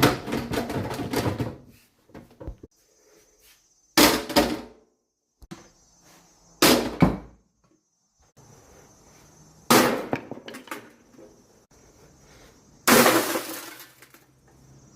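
Gutted microwave oven parts of metal and glass crashing and clattering: five loud bangs a few seconds apart, each with a short rattling tail. A faint steady high whine sounds between them from about three seconds in.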